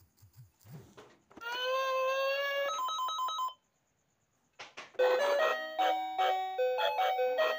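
A drawn-out wailing cry, held at a steady pitch, is followed by a brief beeping ringtone-like tone. After about a second of silence and a few clicks, a plinking chime-like melody starts about five seconds in and carries on.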